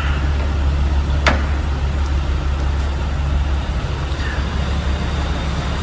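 Ryobi angle grinder with a Diablo steel grinding disc running steadily while cutting into a steel padlock shackle, with a sharp metallic click about a second in.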